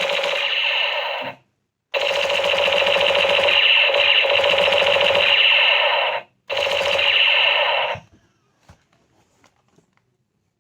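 Battery-operated toy machine gun firing its electronic rattling gun sound effect in three long bursts, each cut off sharply, the last stopping about eight seconds in; a few faint clicks follow.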